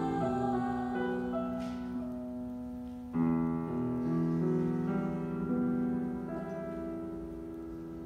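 Piano playing slow closing chords: a new chord is struck about three seconds in and left to ring and fade away.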